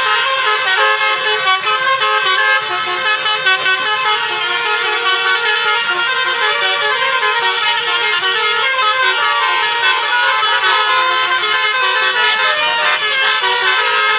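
Telolet basuri bus horns: two buses' multi-trumpet musical air horns sounding together, playing a fast melody of constantly shifting tones without a pause.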